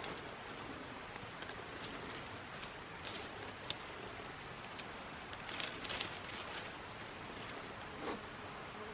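Steady outdoor hiss with scattered rustles and light crackles, bunched together about six seconds in, and a brief falling tone near the end.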